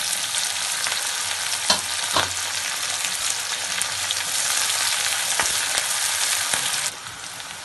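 Chopped onions and green chillies sizzling in hot mustard oil in a kadhai, with a few sharp knocks of a metal ladle as they are stirred. The sizzle drops quieter about seven seconds in.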